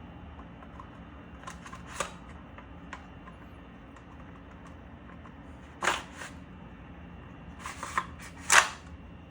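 Sharp plastic-and-metal clicks and clacks of a VFC MP7 airsoft gun's parts being handled: a couple about two seconds in, a louder one around six seconds, and a cluster near the end with the loudest last, over a steady low hum.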